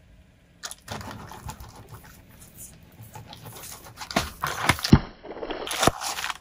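Objects being crushed under a car tyre: a dense run of irregular cracks, crunches and snaps, with the loudest snaps from about four to six seconds in.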